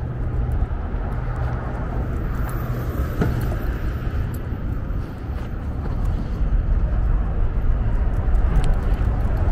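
Steady drone of highway road traffic, cars running by as a continuous white-noise hum, growing somewhat louder in the second half as vehicles pass nearer.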